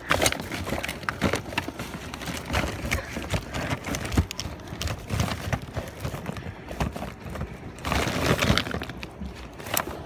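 Hands rummaging through discarded boxes, plastic bags and cables: continuous rustling and crinkling with irregular knocks and clatters as items are shifted, louder about eight seconds in.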